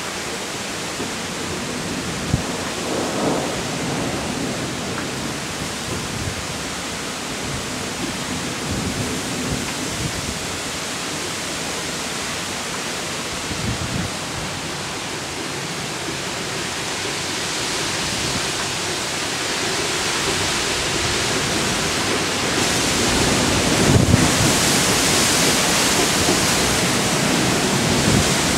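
Thunderstorm: steady heavy rain, with low rumbles of thunder about three seconds in and again near the end. The rain grows heavier and louder in the second half.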